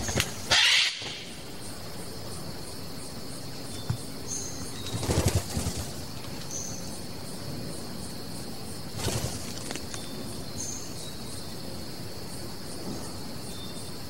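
Western parotia's wings whirring and rustling in three short bursts, the loudest just under a second in and the others about five and nine seconds in. Under them runs a steady high insect drone, with a few brief high chirps.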